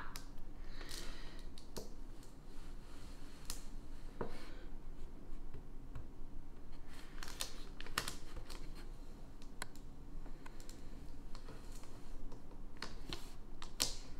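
Hands working transfer tape over vinyl letters on a wooden board: irregular small clicks, taps and short scratches of fingertips and fingernails on the tape.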